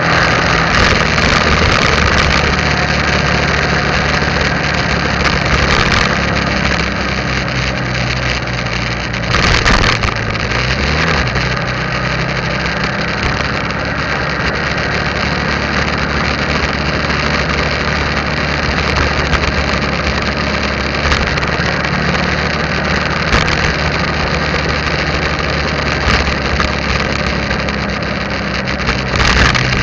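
Motorcycle engine running steadily while riding, heard from the bike itself, under a steady rushing noise. About ten seconds in there is a brief knock, and the engine pitch shifts for a moment.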